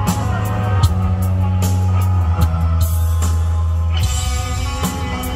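Rock band playing live: drum hits over held bass notes that change every second or two, with sustained guitar or keyboard tones above.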